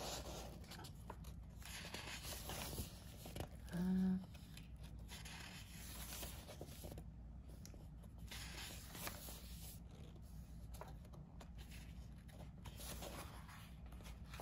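Sheets in a pad of 12 by 12 inch patterned paper being turned and handled: soft paper rustling and sliding. A short hummed 'mm' from a voice about four seconds in.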